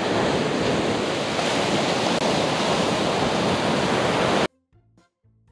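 Steady rushing noise of surf and wind buffeting the action camera's microphone. About four and a half seconds in it cuts off suddenly to quiet background music with sparse single notes.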